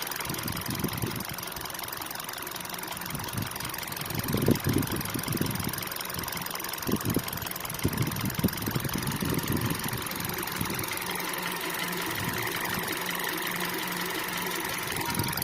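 Engine of a 2012 manual Hyundai-Kia car with over 100,000 km idling with a rapid da-da-da tapping, heard cold and warm alike, which the owner suspects is an abnormal engine noise. A run of louder, irregular knocks comes through in the middle.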